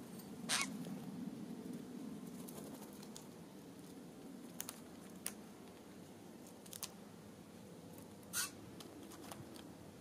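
Birds pecking at a seed-block feeder: a scatter of sharp taps and scratches, the loudest about half a second in and near the end, over a faint low hum.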